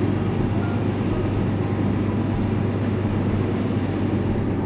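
Sightseeing cruise boat's engine running under way: a steady low drone with constant water and hull noise over it.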